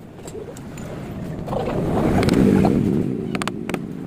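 A motor vehicle passing close by, its engine noise swelling to a peak in the middle and fading away, with a few quick clicks about three and a half seconds in.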